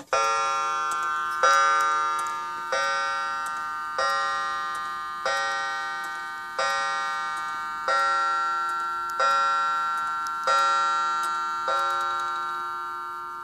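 French mantel clock's two-train, 8-day movement by S. Marti, Paris, striking ten o'clock on its coiled gong. Ten ringing strokes about 1.3 seconds apart, each note fading slowly under the next.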